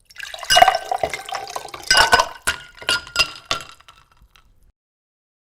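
Water poured into a glass, splashing in two strong surges with the glass ringing faintly. It then breaks into a few last splashes and drips and stops short of five seconds in.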